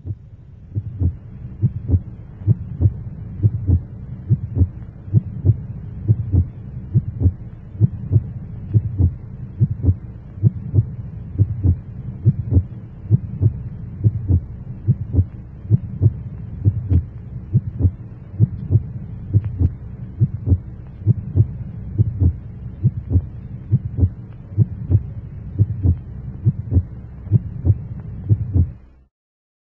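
Low, regular thumping pulse, about two beats a second, over a steady low hum, like a heartbeat; it stops abruptly near the end.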